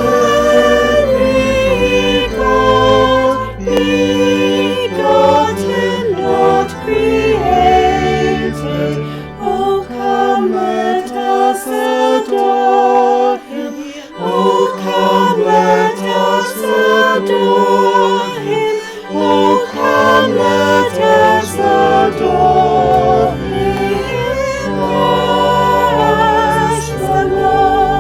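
Choir singing in several parts, with vibrato on the held notes, over low sustained organ notes, phrase by phrase with short breaths between.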